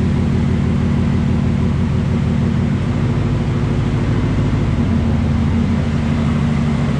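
A vehicle engine running at a steady speed: an even, continuous low hum whose pitch shifts slightly about three seconds in.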